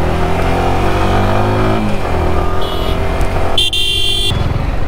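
Sport motorcycle engine accelerating from low speed: the pitch rises, drops at a gear change about two seconds in, then climbs again, over a low wind rumble. A brief high beeping tone sounds twice, the second longer, near the end.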